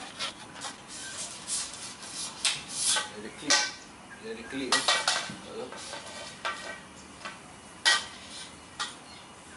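A bike travel bag's hard-plastic bike mount and metal rail clattering and knocking as they are handled and lifted out of the bag: irregular clicks, clacks and light metallic clinks, the sharpest knock about eight seconds in.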